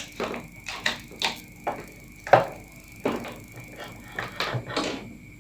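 Irregular light clicks and knocks of cables and small parts being handled on a workbench, about a dozen, the loudest a little over two seconds in, over a faint steady high whine.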